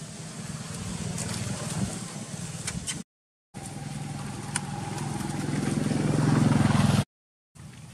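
Engine of a motor vehicle running steadily and getting louder toward the end, broken twice by sudden dropouts to silence.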